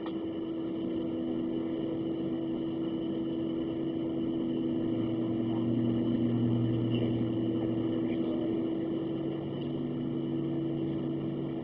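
Boeing 737-700's CFM56 jet engines running at taxi power, heard as a steady hum with several held tones from inside the passenger cabin. A deeper drone swells about five seconds in and eases off again about three seconds later.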